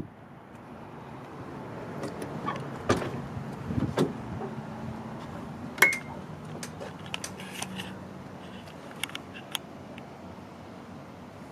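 Clicks and knocks from the cab door of a Ford bus and its fittings as someone climbs into the cab. The sharpest knock, with a brief ring, comes about six seconds in, followed by lighter taps.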